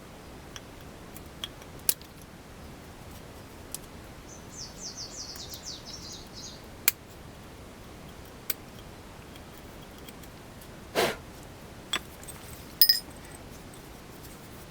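Hand work on brake parts: scattered sharp metallic clicks and taps, a quick run of light clicks about four and a half seconds in, a knock near eleven seconds, and a ringing metal clink near thirteen seconds as brake pads and their metal plates are handled.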